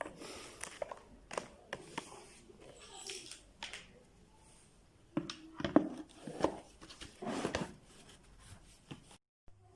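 Irregular clicks, knocks and short scrapes of small parts being handled during a repair, busiest a little past halfway, cut off abruptly near the end.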